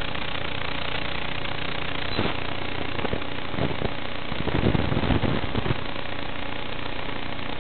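Steady hiss, with scattered crackles and a denser run of pops about four and a half to six seconds in.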